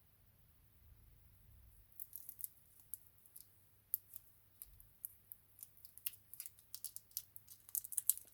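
Tissue blade cutting polymer clay and tapping the work surface: short, crisp clicks that start about two seconds in and come faster toward the end.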